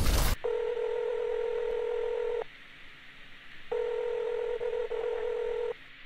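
Telephone ringback tone heard down the line: two rings of about two seconds each, a little over a second apart, as the called number rings before being answered. A brief loud burst of noise cuts off just at the start.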